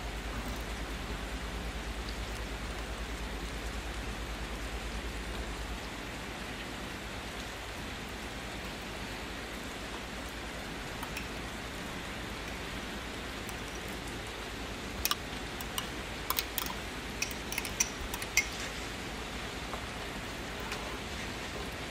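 Chicken pieces and tomato sauce sizzling steadily in a skillet. Between about 15 and 18 seconds in there is a quick run of sharp clicks, a wooden spoon knocking against the pan as yogurt is stirred in.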